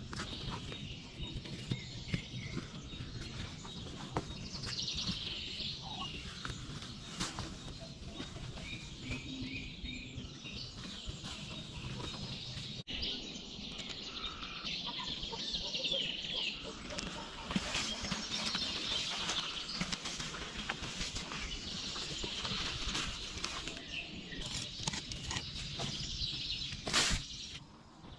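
Small birds chirping and twittering over a low outdoor background, with scattered clicks and knocks and a sharp knock near the end.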